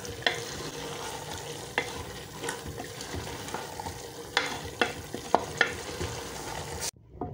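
Boiled black chickpeas frying in ghee in a metal pot, sizzling steadily while a spoon stirs them, scraping and clicking against the pot now and then. This is the bhuna stage, the chickpeas being fried down with the spices. The sound cuts off suddenly near the end.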